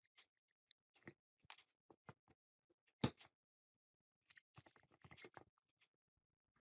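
Scattered small clicks and knocks of an electric chainsaw motor's parts being handled as its field coil is worked out of the metal housing, with one sharper knock about three seconds in and a quick run of rattling clicks a second later.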